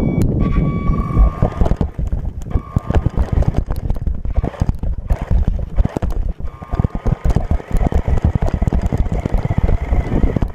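Radio-controlled monster truck driving over grass, heard from a camera riding on it: a constant rapid clatter and rattle of the chassis and wheels over the bumpy ground, with a thin motor whine that comes and goes.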